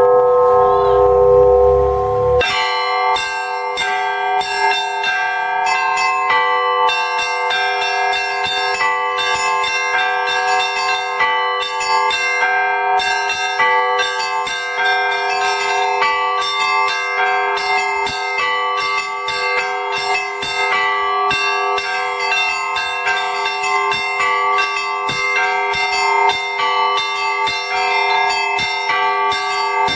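Orthodox church bells rung in a festive peal: several bells of different pitches struck in a quick, continuous rhythm over the hum of the ringing bells. A low rumble is heard under the first two seconds, then stops as the dense striking picks up.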